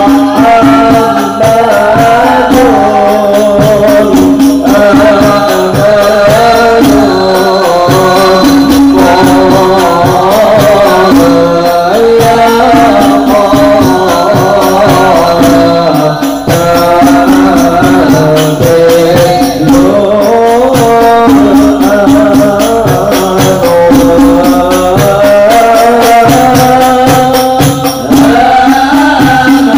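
Sholawat Al-Banjari: men singing a melodic Arabic devotional song over a group of frame drums (rebana/terbang) beaten in a steady interlocking rhythm.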